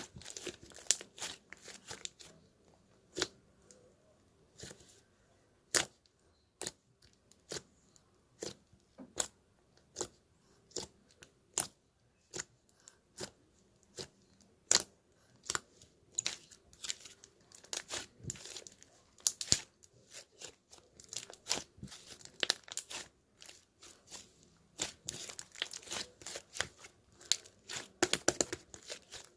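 Close, irregular crisp crackles and short tearing sounds from a crinkly material being handled, coming more thickly in the second half.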